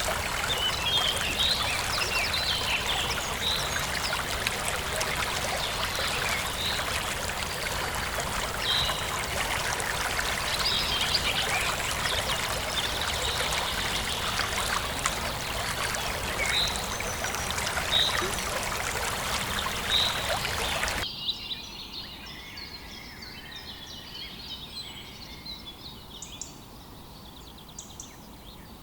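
Birds calling with short, repeated chirps over the steady rush of running water. About three-quarters of the way through, the sound cuts suddenly to a quieter recording of birds chirping.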